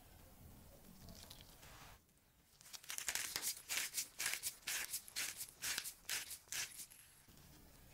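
Pepper grinder grinding black pepper: a rapid run of short grinding crunches, about four or five a second. It starts a few seconds in and lasts about four seconds.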